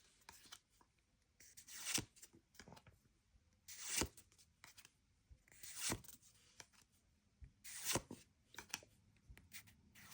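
Pokémon trading cards being slid one at a time through a freshly opened booster pack, a short papery swish about every two seconds with light rustling between.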